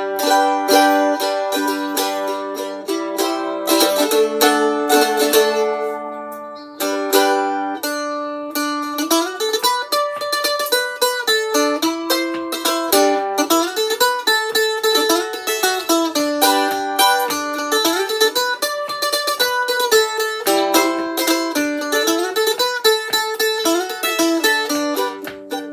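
Fender mandolin being played, freshly restrung after a tailpiece repair: quick picked melody notes mixed with strummed chords, played to try out the repair.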